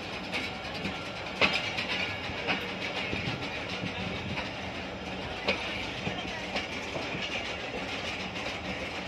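Passenger train coach running on the track, a steady rumble of wheels on rails with sharp knocks about once a second as the wheels clack over rail joints.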